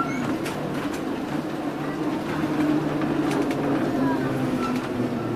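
Vintage tram running, heard from inside the car: a steady low hum and rumble with a sharp click right at the start.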